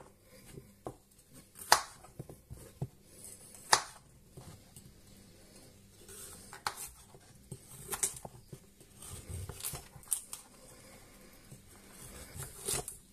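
Kitchen knife cutting raw peeled carrots lengthways on a chopping board: irregular sharp knocks as the blade goes through and meets the board, every second or two, with quieter scraping and crunching of the carrot in between.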